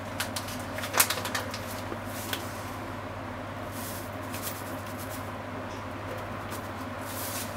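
Ground chicken simmering in liquid in a frying pan over a steady low hum. A sharp click comes about a second in, with a few lighter clicks. A foil packet crinkles as it is shaken over the pan at about four seconds and again near the end.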